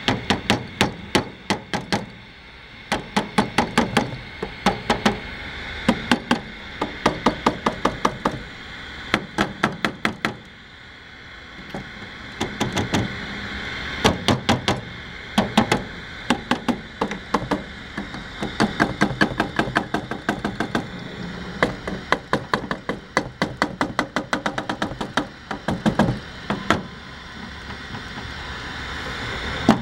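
Rapid sharp tapping on the circuit board of a switched-on 1992 Sanyo 19-inch CRT television, in quick runs of several taps a second broken by short pauses. The board is being beaten and flexed to hunt an intermittent bad connection that cuts out the set's horizontal drive.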